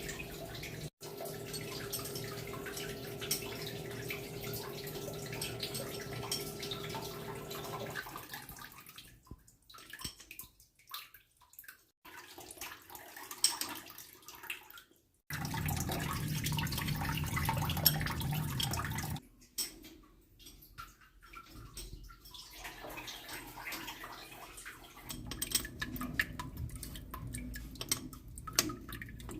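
Water splashing and dripping, in several cut-together stretches, some with a steady low hum under them.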